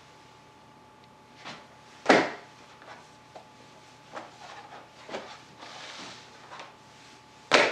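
Sharp knocks and thuds of kitchen handling at a counter as stretched pizza dough is laid on a plastic cutting board and pressed out by hand. The loudest knock comes about two seconds in and another comes near the end, with quieter rustling and taps between, over a faint steady hum.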